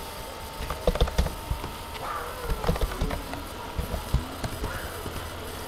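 Computer keyboard keys and mouse buttons clicking in a few small clusters of sharp taps, over a steady low hum.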